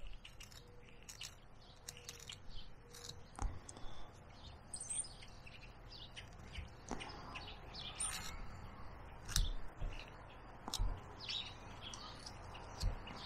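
Whittling knife slicing small chips from a wooden dowel: scattered soft clicks and scrapes, with a few low knocks of handling. Birds chirp in the background.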